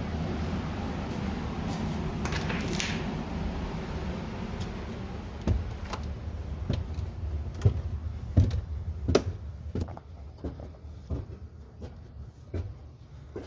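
Irregular knocks and thumps, as of someone climbing up into an attic through its access, over a steady low rumble that drops away about ten seconds in.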